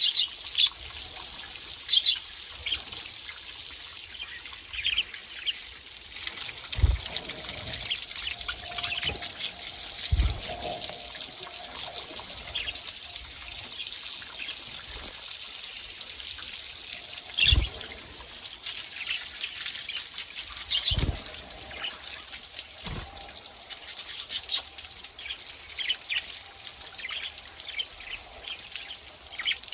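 Small pet parrots chirping in short, repeated calls over a steady trickle of running water, with a few dull knocks.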